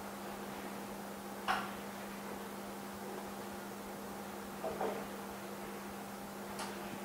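Steady electrical mains hum, with a few light clicks and taps: a sharp one about one and a half seconds in, a small double tap near five seconds, and a faint click near the end.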